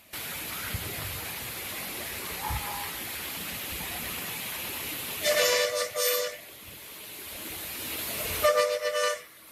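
Vehicle horn sounding twice over steady background noise: a blast of about a second some five seconds in, and a shorter one near the end.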